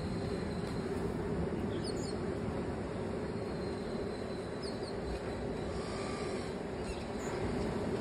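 Steady low wash of sea surf on a beach, with a few short, high bird chirps over it.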